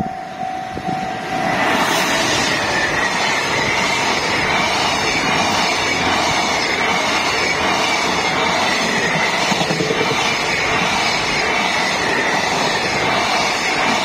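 Level-crossing warning bell ringing with a repeating tone. About two seconds in, a freight container train reaches the crossing and drowns it out, its wagons rumbling and clattering over the rails as they pass close by.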